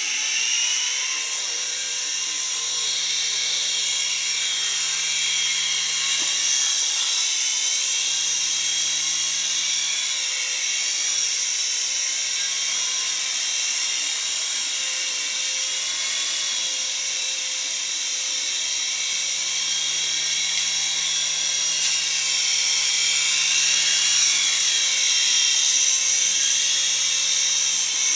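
Toy remote-control helicopter's small electric motors and rotors running in flight: a steady high-pitched whine that drifts slowly up and down in pitch.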